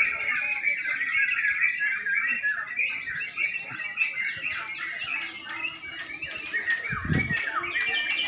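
Many caged crucuk songbirds singing at once: a dense, unbroken chatter of overlapping chirps and whistles, with a few gliding whistles near the end. A low thump about seven seconds in.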